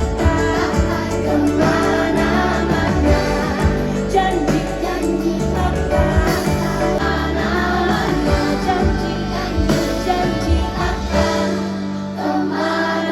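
Live pop band music played through a concert PA, with many voices singing together like a crowd singing along.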